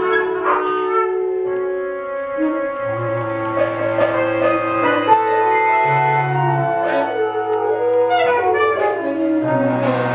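Free jazz group improvisation: saxophones, clarinets, trombone and other horns holding long overlapping notes over a low sustained note, with keyboard and light percussion ticks.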